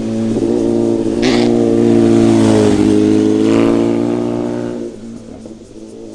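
Sport motorcycle passing at speed: a steady, loud engine note that swells as it comes close and fades away after about five seconds, with a brief sharper burst from the exhaust a second in.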